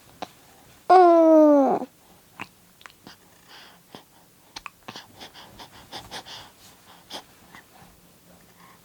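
Young baby's short whiny cry, under a second long, falling in pitch about a second in, followed by faint clicks and soft small sounds.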